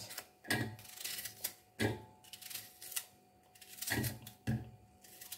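Kitchen knife slicing through a raw onion held in the hand, with several crisp, irregular snaps as it cuts and the pieces drop into a glass food chopper bowl.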